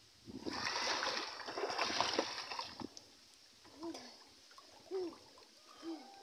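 Water splashing from children swimming and wading for about two and a half seconds, then three short voice calls about a second apart.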